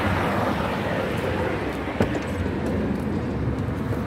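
Steady outdoor background rumble with a single sharp click about two seconds in.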